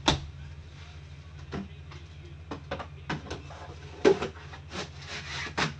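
Handling noise of a gold Flawless briefcase-style box: irregular clicks, knocks and rubbing as it is picked up, moved and handled, the loudest knocks right at the start and about four seconds in. A low steady hum runs underneath.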